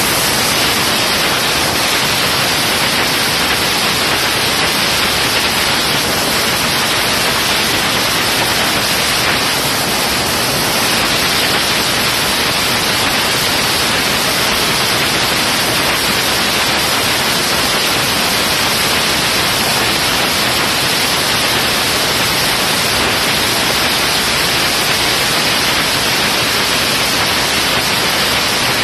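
Top Fuel dragster's supercharged nitromethane V8 running steadily during a warm-up, so loud that the phone microphone overloads into an even hiss.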